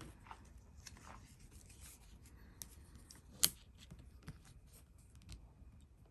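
Faint handling sounds of a knife being laid against a measuring tool: light rubbing and small taps, with one sharper click about three and a half seconds in.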